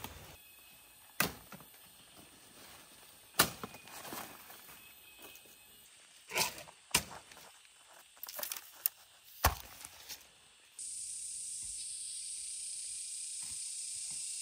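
Footsteps and rustling in dry leaf litter with several sharp knocks. About eleven seconds in, a steady, high-pitched insect buzz starts abruptly.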